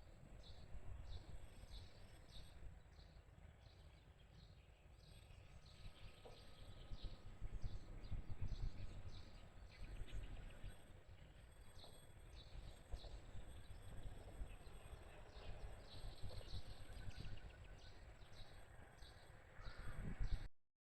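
Small birds chirping in quick, repeated high notes over a low outdoor rumble; the sound cuts off abruptly near the end.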